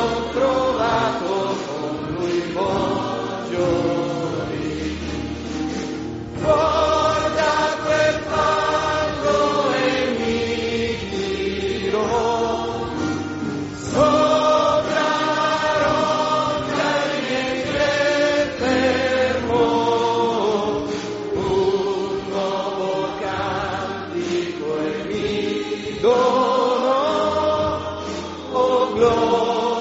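A choir singing a slow hymn in long, held phrases over a low sustained accompaniment.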